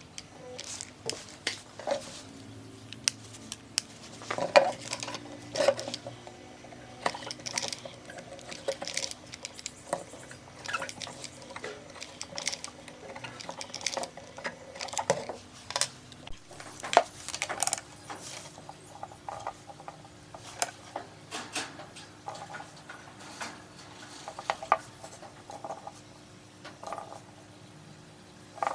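Irregular metallic clinks, taps and knocks of small parts and hand tools being handled, sometimes several close together.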